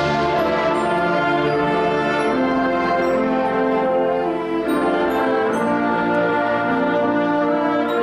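Concert wind band playing full, sustained chords, with the harmony shifting to a new chord a little past halfway.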